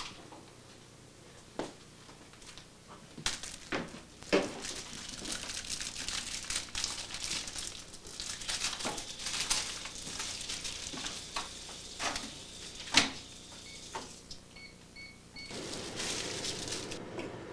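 A microwave popcorn bag being unwrapped and crinkled, with scattered clicks and knocks of handling at the counter, then three short microwave keypad beeps and the microwave oven starting to run with a steady hum.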